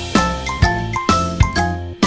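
Background music: a light, tinkling melody of bell-like struck notes, a new note about every half second.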